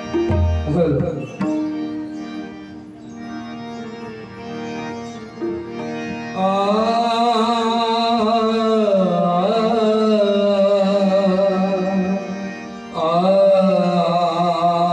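Bhajan music: steady held notes, as from a harmonium, then from about six seconds in a singer comes in with a long, wavering melodic line over them, pausing briefly near the end before going on.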